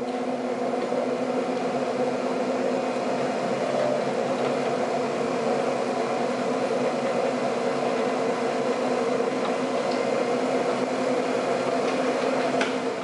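Smithy Granite G1324 mill/lathe combination machine running its spindle at steady speed, with an even motor hum and whine. Near the end a click comes as it is switched off, and it begins to wind down.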